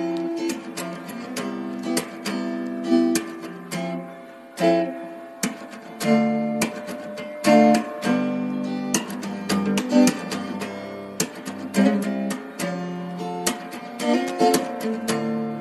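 Background music: acoustic guitar playing, with plucked notes and strummed chords.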